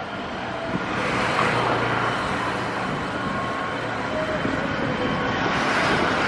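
Airbus A320-family airliner's twin jet engines at takeoff thrust during the takeoff roll, a steady wide roar that swells about a second in as the jet accelerates down the runway.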